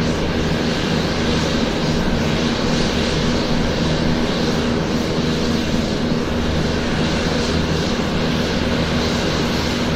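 Airliner engines running loud and steady: a dense rush of noise with several steady low hums underneath, holding at one level.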